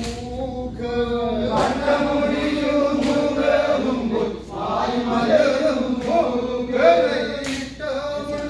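Group of men singing a chant-like Kurumba tribal dance song in unison, with a few sharp slaps or claps cutting through.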